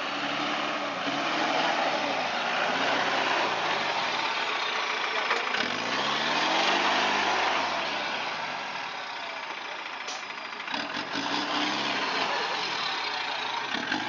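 Engine of a mud-caked off-road 4x4 competition vehicle revving up and down again and again as it crawls through deep mud.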